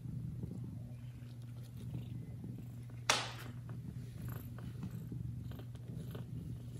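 Cat purring steadily in a close, low rumble, with one brief sharp noise about three seconds in.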